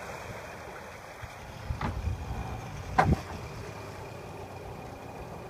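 Twin 300 hp outboard motors running at low idle speed as the boat maneuvers slowly, a steady low rumble. Two short sharp knocks stand out, the louder one about three seconds in.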